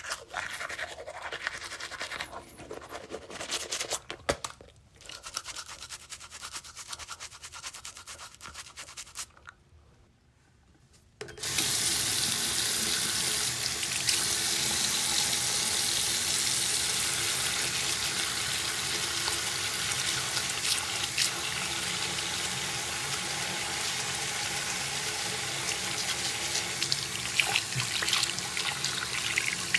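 Toothbrush scrubbing teeth in short, irregular strokes for several seconds. After a brief pause, a tap is turned on and runs steadily into a sink for the rest of the time, louder than the brushing.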